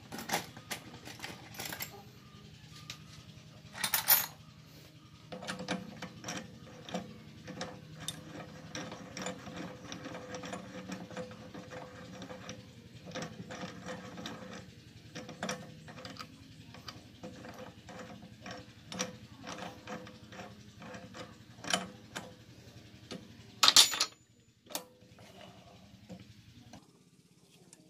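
Clicks and knocks of metal parts being handled on a stopped mini metal lathe as the drill chuck and tailstock are set up, with a faint steady hum beneath. Two louder clattering knocks stand out, one about four seconds in and one near the end.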